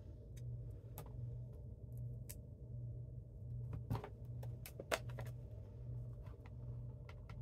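Scattered light clicks and taps of a clear acrylic stamp block and a plastic ink pad case being handled on a craft mat, over a steady low hum.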